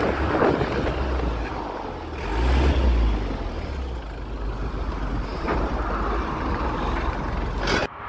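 Road traffic noise: a vehicle passing with a low rumble that swells about two to three seconds in. The sound cuts off abruptly near the end.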